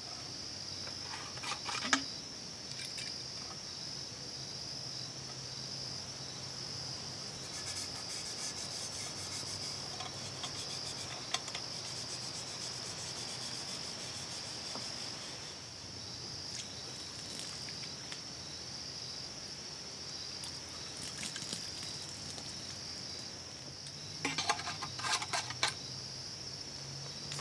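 Steady high-pitched chorus of crickets or other insects, with scattered light clicks and short rustles from gear being handled, strongest about two seconds in and again near the end.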